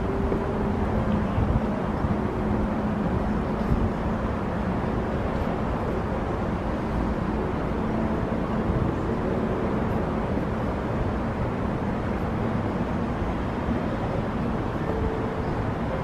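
Steady low outdoor rumble with no distinct events, and a few faint short tones above it.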